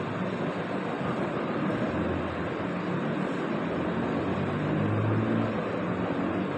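Steady background rumble and hiss with a low hum that wavers in pitch, a little louder about five seconds in.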